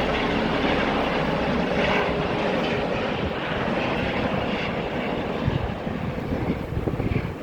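Air ambulance helicopter's rotor and engine noise, loud and steady, easing slightly toward the end. Wind buffets the microphone in the last couple of seconds.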